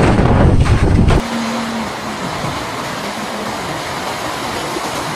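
Typhoon-force wind buffeting the microphone in loud gusts. About a second in, it changes abruptly to a steadier hiss of wind-driven heavy rain.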